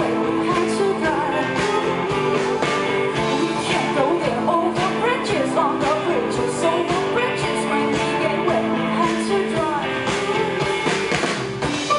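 Live pop band playing an instrumental passage on drum kit, electric guitar and keyboard, with steady drumming under sustained keyboard and guitar tones.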